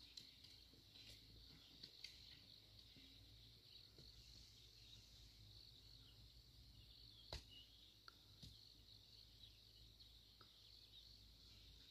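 Near silence: a faint, steady insect chirring in the background, with a few soft clicks, the clearest about seven seconds in.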